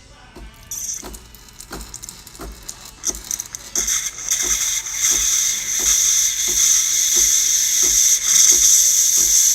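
DeLonghi Magnifica super-automatic espresso machine's steam wand hissing, building up over the first few seconds into a strong, steady hiss, with a regular ticking just under twice a second; strong steam output shows the freshly serviced machine's steam function working.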